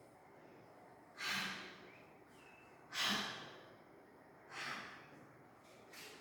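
A woman's voice making the breathy, unvoiced phonic sound of the letter h three times, each a short puff of breath about a second and a half apart.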